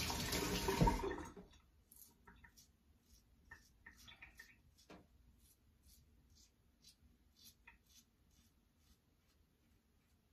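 Water running from a tap, shut off about a second and a half in. Then a RazoRock Switch double-edge safety razor scraping through lathered stubble in short, faint strokes, about two a second.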